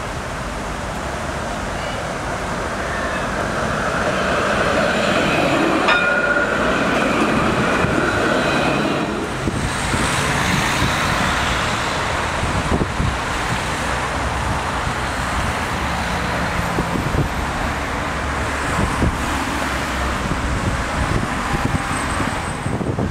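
Electric tram running on its rails, a steady rumble with a faint whine over it, then a second tram rolling in toward a platform stop.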